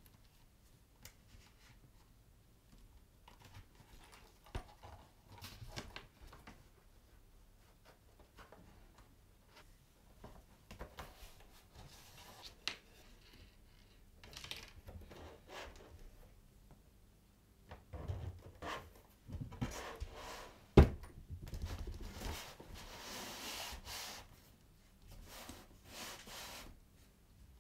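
Stiff vegetable-tanned leather pieces being handled and moved about: scattered rustling and rubbing of leather with small clicks, and one sharp knock about three quarters of the way through.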